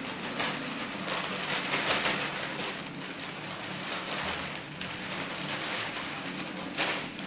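Dry grain pouring from plastic bags into a metal bin: a steady, rain-like hiss of many small grains hitting the metal and the growing pile.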